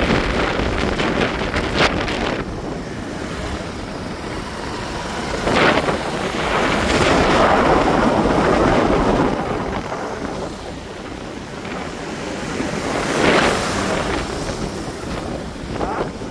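Wind rushing over the microphone from a moving vehicle, with low road rumble beneath; the rush swells louder about a third of the way in and again briefly later.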